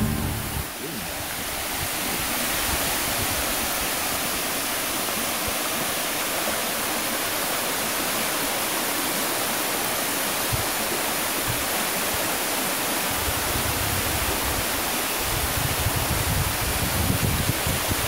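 Waterfall pouring down a rock face onto rocks and a pool: a steady rush of falling water. Low rumbling on the microphone comes and goes near the end.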